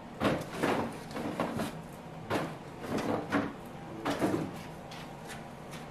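Cardboard packaging scraping and rustling against a cardboard box as it is pulled out and handled, in a string of short scrapes.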